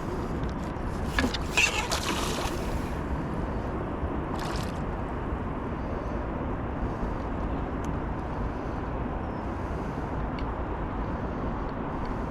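A steady low rumble, with a few short splashy bursts of water noise about one to three seconds in and once more near the middle.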